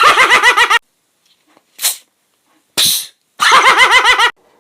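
A person's voice doing a sound imitation: a fast run of about seven short, arched, yelping calls, two short breathy bursts, then another fast run of about eight of the same calls.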